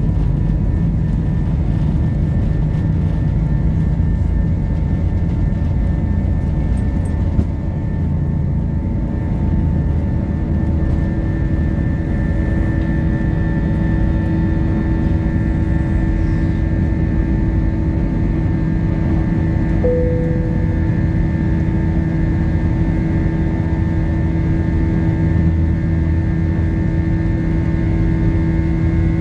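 Jet airliner engines at takeoff power, heard from inside the cabin through the takeoff roll, liftoff and climb: a steady loud rush with a steady whine, and a further tone joining about a third of the way through.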